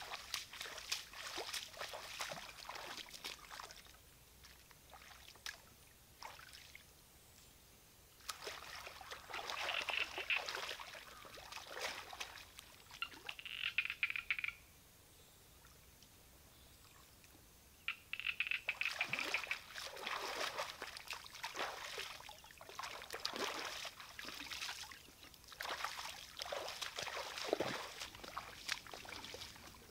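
Water splashing and sloshing as a person wades and moves about in shallow muddy floodwater. It comes in several spells with quieter gaps between them.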